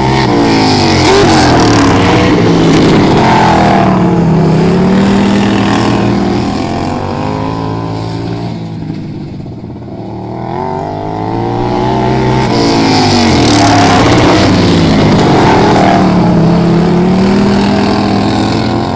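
Racing lawnmower engines running hard and passing by twice, their pitch dropping as each goes past. The sound fades briefly about halfway through before the next pass builds.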